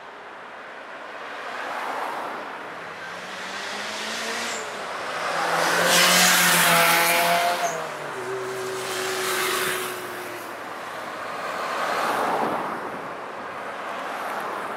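Cars passing one after another, each swelling and fading with tyre and engine noise. The loudest pass comes about six seconds in, with an engine note that bends in pitch as it goes by.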